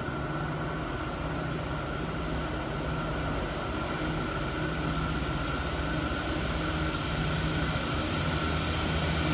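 Freight train led by an 82 class diesel locomotive approaching, its engine drone growing steadily louder.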